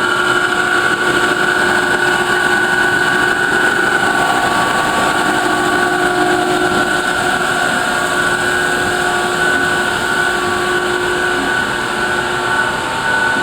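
Farrel roll grinder running under power: a steady machine drone with a constant high whine over lower hums.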